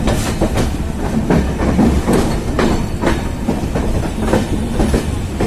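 Express passenger train running at speed, heard from its coach: wheels clattering over rail joints in irregular knocks over a steady rumble and rush of air.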